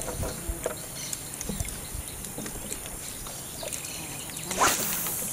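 Steady high-pitched drone of rainforest insects, with scattered light knocks and a short rushing sound near the end.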